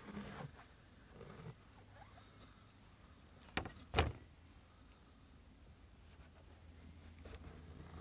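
Chef's knife cutting through a small watermelon on a wooden cutting board, with light knocks and then a heavy thud on the board about four seconds in as the cut goes through and the halves come apart. Insects keep up a faint high hiss in short repeated stretches behind it.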